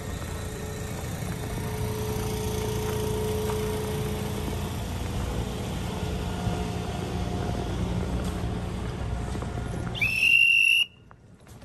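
Resort Shirakami train standing at the platform with its engine running, a steady low rumble with a faint hum. About ten seconds in comes a short, sharp, high-pitched conductor's whistle blast, the loudest sound, which cuts off abruptly.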